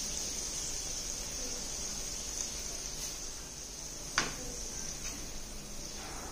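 Faint steady high hiss with a single sharp click about four seconds in.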